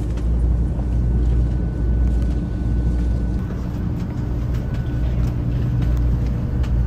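Steady low rumble and hum inside the passenger car of the Hello Kitty Shinkansen, a 500 series bullet train, with a faint steady whine above it.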